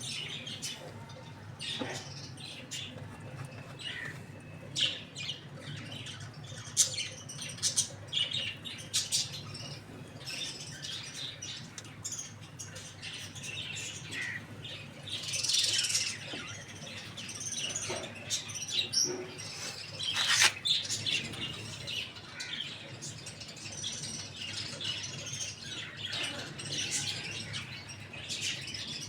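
Birds chirping in many quick, short, high calls, with a couple of louder bursts of chirping about fifteen and twenty seconds in.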